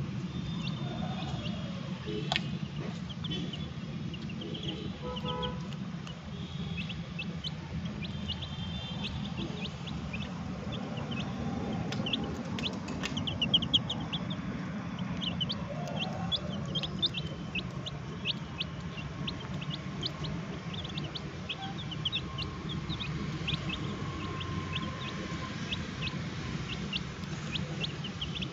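Young chicks peeping again and again in short, high cheeps while they feed, with a few sharp clicks. A steady low hum runs underneath.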